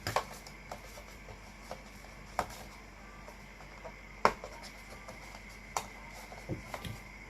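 Unboxing handling noise from the headphones' box and accessories: scattered light taps and clicks over a faint hiss, with one sharper knock about four seconds in.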